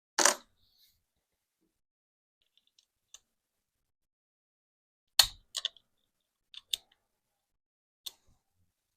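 Scattered sharp clicks and light metallic knocks of small AR-15 parts being handled as the safety selector is fitted back into the lower receiver: a short knock just after the start, a few faint ticks, then a louder click about five seconds in followed by several smaller clicks.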